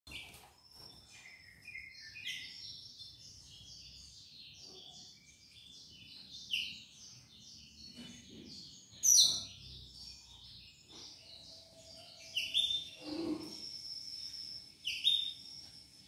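Blackthroat (black-throated canary) singing a long, fast twittering song of rapid sliding notes, with a few louder sharp notes about halfway through and near the end.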